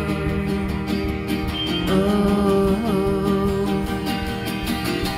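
A live band playing a song: strummed acoustic guitar and electric guitar over a steady beat, with a sung vocal line coming in about two seconds in.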